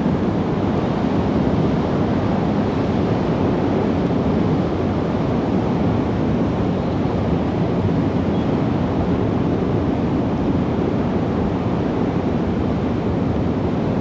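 Strong wind, gusting at 40 to 50 miles an hour, rumbling steadily on the microphone.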